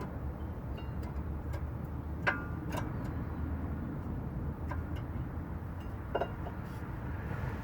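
A few light metallic clinks of brake parts being handled and fitted, the loudest about two seconds in with a brief ring, over a steady low rumble of background noise.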